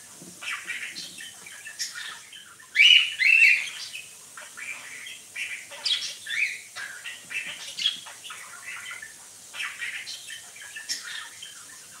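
Cockatiel calling: a run of short chirps and squawks, with the loudest calls about three seconds in.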